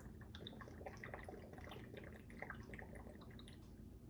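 Quiet, moist chewing and lip-smacking of a person eating a fried chicken wing close to the microphone: many small irregular clicks.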